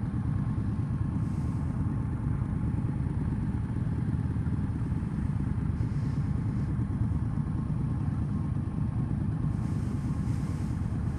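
Motorcycles idling at a standstill: the Indian Scout's 1133 cc liquid-cooled V-twin ticking over steadily with the other stopped motorcycles around it.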